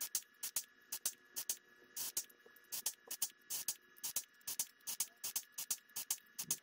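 Rivet squeezer fitted with substructure dimple dies, dimpling the flange holes of an aluminium rudder rib: a rapid run of short, sharp clicks, several a second, at a slightly uneven pace.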